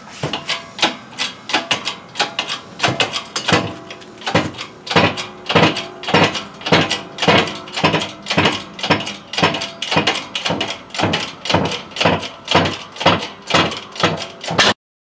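A shop press being worked to push the front wheel hub out of the steering knuckle: a fast, regular run of sharp metallic clicks, about three a second, with metal ringing between them, cutting off just before the end.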